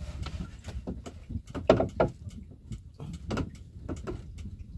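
Irregular knocks, clicks and rubbing as a nylon handline is hauled in hand over hand against a small wooden boat, a hooked red grouper on the line, over a low steady rumble.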